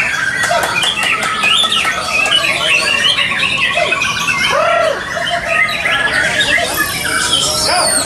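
Many caged white-rumped shamas (murai batu) singing against each other at once: a dense overlap of rising and falling whistles and fast repeated notes.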